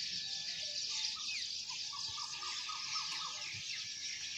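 Many birds chirping in the trees, a dense high chorus of short falling chirps, with one bird giving a quick run of lower notes from about a second in until past the middle.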